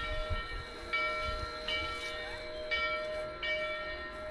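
Steam locomotive bell of Rio Grande Southern No. 20 ringing steadily, one stroke about every three-quarters of a second, each ring held until the next.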